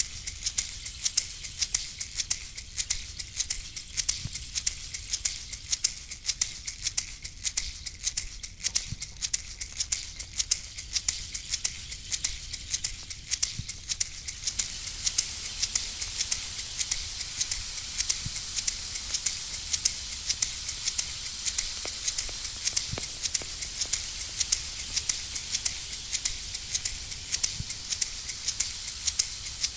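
Hand rattle shaken in a steady rhythm, about three shakes a second, over a steady hiss. A soft low thud comes about every five seconds.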